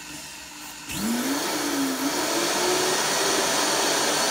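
Vita-Mix blender motor running low, then turned up about a second in, its pitch rising as it speeds up. It then runs loud and steady, grinding dry oats into flour.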